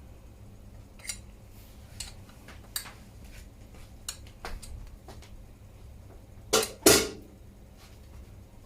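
Metal hand tools clinking against a bicycle crankset while its bolts are tightened: a few light clicks, then two louder metallic knocks close together about seven seconds in.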